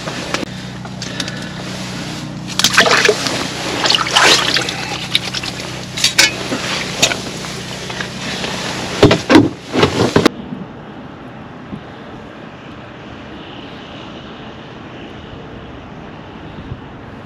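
Splashing and sloshing water in an ice-fishing hole, mixed with handling and rustling in irregular bursts, over a low steady hum. About ten seconds in it cuts off abruptly to a steady wind hiss on the open ice.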